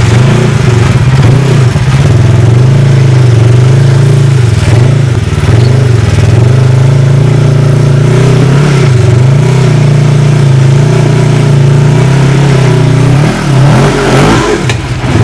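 Polaris RZR side-by-side's twin-cylinder engine revving up and down under load as it crawls up a rock ledge. Near the end the engine note drops briefly and there is a sharp knock.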